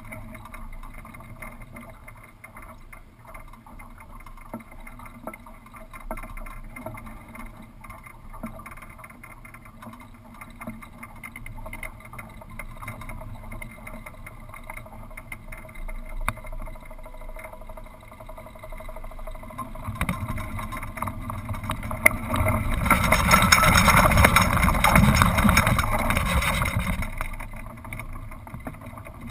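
Wind and water noise at the masthead of a small sailboat under way. About twenty seconds in it swells to a loud rush for several seconds as the mainsail swings across to the other side, then eases off again.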